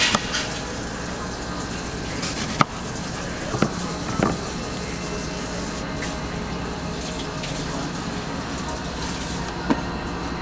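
Kitchen knife slicing a fresh apple on a plastic cutting board, with a few separate sharp knocks of blade and fruit against the board, over a steady background din.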